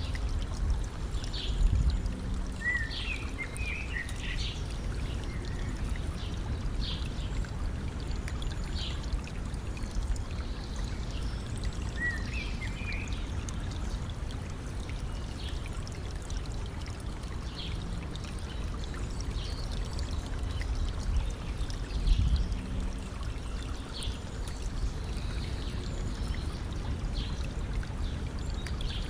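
A stream trickling and pouring steadily, with short bird chirps now and then above it. Twice the water briefly swells louder and deeper.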